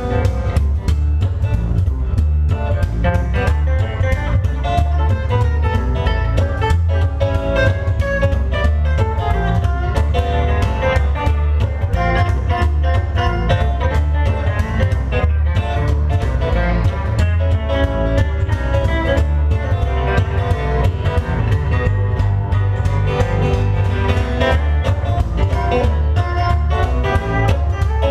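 Live band playing a country-blues song on acoustic guitar and plucked upright bass, the bass line running steadily under the guitar.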